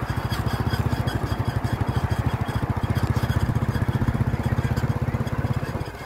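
An engine running with a fast, even chugging pulse, getting louder toward the middle and dropping away near the end.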